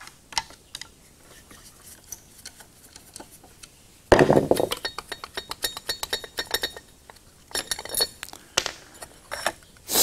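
Small metal parts of an LED flood light fixture clicking and clinking as its cover plate is worked loose and taken off. A few light ticks at first, then from about four seconds in a quick run of sharp metallic clinks with a ringing edge.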